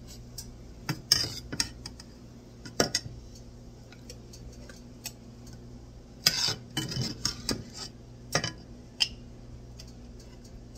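Metal spoon clinking and scraping against a glass jar and a stainless steel pot while jelly is spooned into the jar. Scattered sharp clinks, with a busy run of them about six to seven and a half seconds in.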